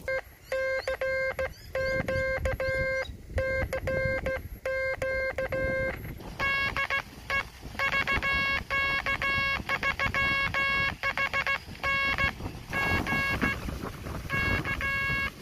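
Morse code sidetone from a homebuilt 40 m QRP CW transceiver through a small speaker: a single buzzy tone keyed on and off in dots and dashes as the operator sends. Wind rumbles on the microphone underneath.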